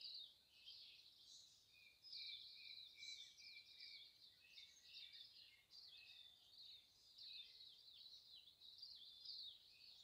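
Faint birdsong: a continuous run of quick, high chirps and trills, with a lower repeated note from about two to four seconds in.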